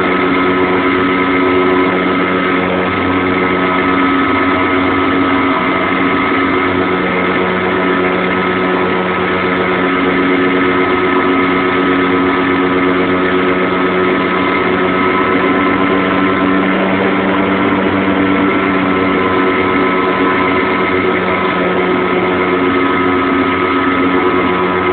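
Radio-controlled model airplane's engine running steadily at a nearly constant speed.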